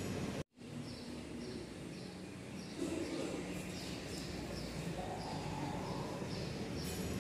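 A small bird chirping over and over, short high chirps about twice a second, over steady background noise. The sound drops out completely for a moment about half a second in.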